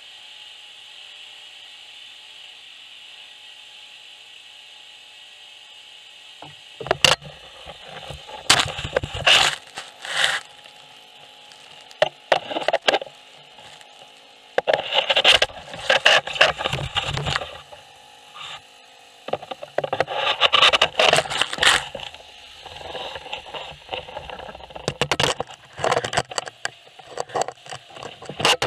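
Gutter vacuum running with a steady hiss, then, from about seven seconds in, irregular bursts of rattling and scraping as gutter debris is sucked into the nozzle on the pole and the nozzle scrapes along the gutter.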